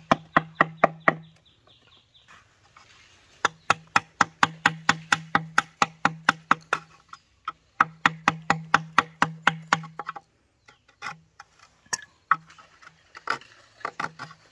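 Rapid, even knocking of a tool striking bamboo, about five strikes a second, in runs of a few seconds broken by short pauses. The blows thin out to a few scattered knocks near the end.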